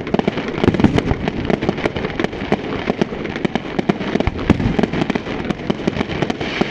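Fireworks display going off: a dense, continuous run of sharp bangs and crackles, several a second, over a steady low rumble.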